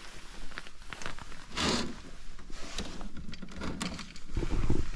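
Sheer curtain being pulled aside by hand: fabric rustling and curtain runners scraping along the rail in a few short swishes, with a dull bump near the end.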